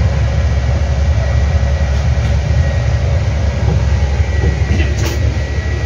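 Nissan Diesel CB87L bus's diesel engine and rumbling 'ngorok' (snoring) exhaust under way, heard from the rearmost seat inside the cabin, a steady low drone.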